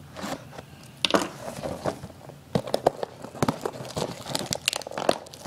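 Cardboard trading-card blaster box being opened by hand: irregular crinkles, scrapes and sharp clicks of cardboard and packaging, with a few louder snaps about a second in and around the middle.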